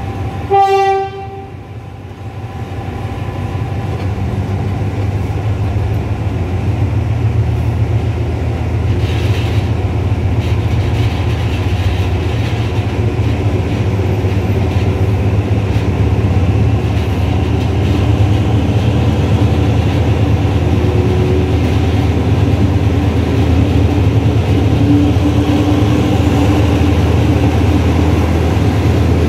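Diesel locomotive D.4532 sounds its horn once, a blast about a second long near the start. Its diesel engine then runs under power, growing louder over the following fifteen seconds or so and then holding steady, with wheel and rail noise as the train moves.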